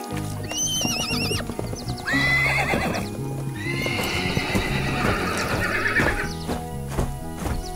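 Horse whinnying sound effect, three wavering calls with the last one longest, over background music; clip-clopping hooves near the end.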